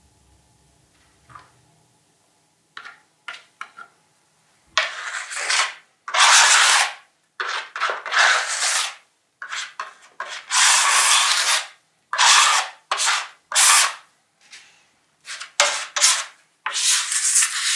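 Stiff paintbrush scrubbing paint across a board: a series of loud, scratchy strokes, some short and some over a second long, starting about five seconds in after a few faint taps.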